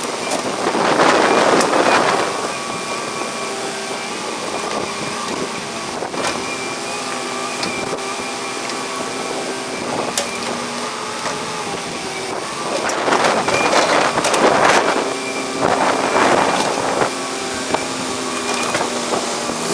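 Excavator diesel engine running steadily at a construction site, with three louder, rougher surges of noise while it works: one near the start and two close together near the end.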